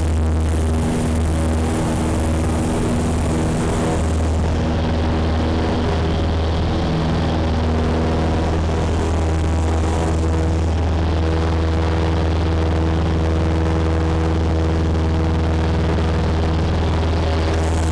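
Cessna 172's single piston engine and propeller running at full takeoff power, heard inside the cockpit, as the plane rolls, lifts off and climbs out. A steady, deep drone with no change in power.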